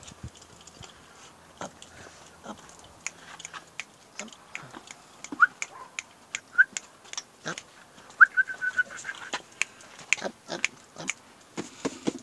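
Dog whining in short high cries: one at about five and a half seconds, one a second later, and a longer one near eight seconds that rises and then holds. Scattered sharp clicks and knocks run through the cries.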